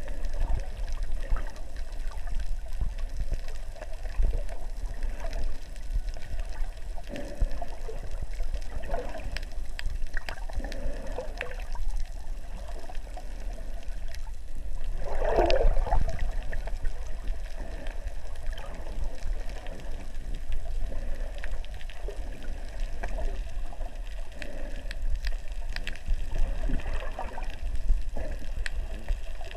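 Water heard from underwater: a steady muffled rumble with irregular gurgles and bubbling, swelling loudest about halfway through.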